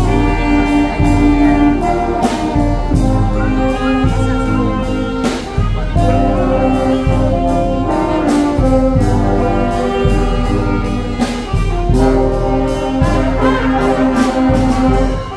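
Live brass band playing: trumpets, trombones and a sousaphone sounding full sustained chords over a steady beat.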